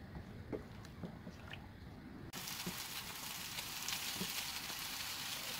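A few light taps and scrapes of a silicone spatula stirring soup in a pot. About two seconds in, this gives way to the steady hissing bubble of the silkworm pupa soup at a rolling boil.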